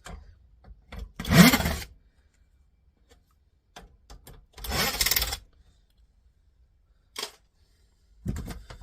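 Screws being backed out of a stereo tuner's chassis with a screwdriver: a few short scraping bursts with light knocks in between.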